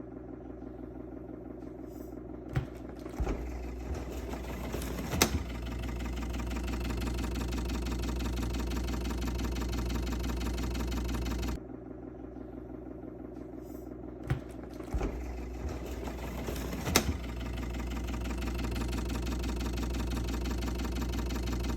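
KitchenAid refrigerator running with a steady mechanical hum, broken by a few sharp clicks.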